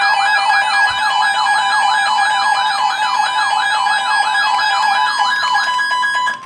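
Weather radio warning alarm: a siren-like falling sweep repeating about three times a second over steady alert tones, the radio's signal that a severe thunderstorm warning is coming. The sweeps stop near the end, leaving a single steady tone.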